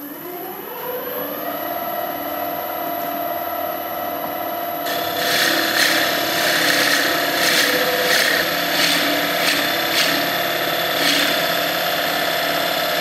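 Record Power wood lathe spinning up, its motor hum rising in pitch over the first second or so and then holding steady. From about five seconds in, a Forstner bit held in the tailstock drill chuck cuts into the spinning wooden lamp base, boring its centre hole; the cutting noise swells with each push of the bit, roughly once a second.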